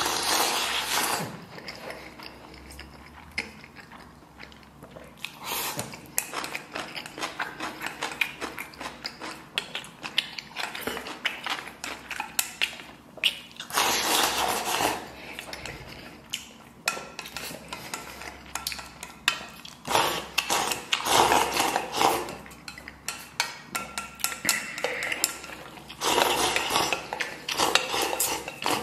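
Wooden chopsticks clicking and scraping against a stainless steel bowl as food is shovelled from the rim into the mouth. Louder bursts of slurping and chewing come every few seconds.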